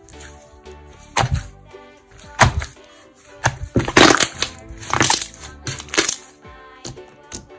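Hands squeezing and poking green slime, giving sharp pops and crackles about once a second, over background music.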